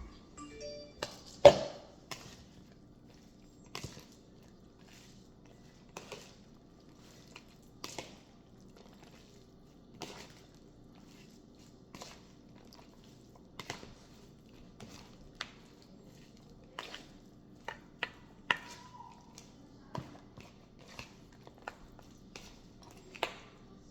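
A knife chopping on a cutting board in slow, irregular single strokes, a sharp knock every second or two, the loudest about a second and a half in and a quicker cluster of strokes a little after the middle.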